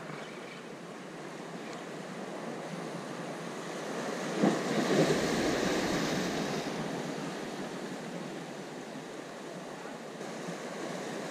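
Sea waves surging and breaking against concrete tetrapod breakwater blocks, one wave crashing about four and a half seconds in and its wash slowly fading.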